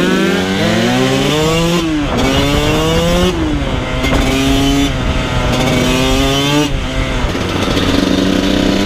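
Dirt bike engine pulling up through the gears: its pitch climbs, drops back at each shift about four times, then holds steady near the end.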